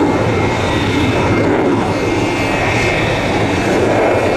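Fighter jet's engine noise, loud and steady, as the jet flies a display manoeuvre, with a faint high whine above the noise.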